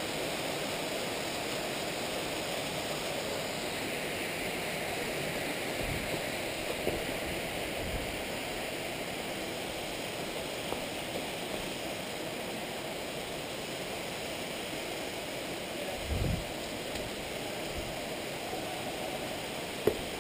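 Steady rush of a waterfall and the creek below it, with a few brief low thumps, the loudest about three-quarters of the way through, and a sharp click near the end.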